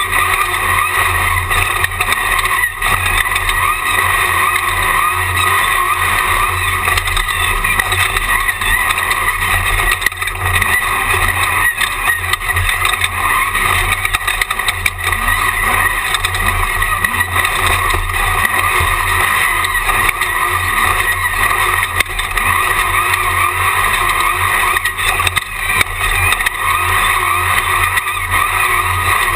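Jimco Class 1 off-road desert race car running at speed, heard from the onboard camera: a loud, steady drone of engine and road noise.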